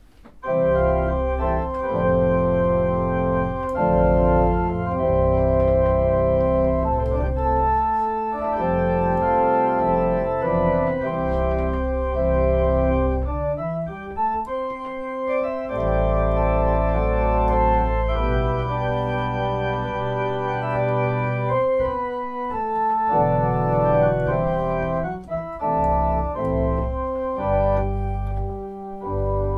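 Organ music: sustained full chords over deep bass notes, the chords changing every second or so.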